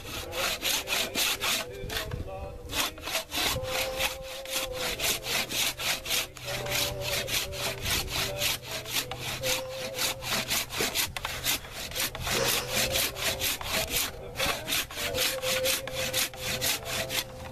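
Cross-cut handsaw cutting through a wooden log in fast, even back-and-forth strokes, each stroke a rasp of teeth in the wood. The strokes pause briefly about two and a half seconds in and again about fourteen seconds in.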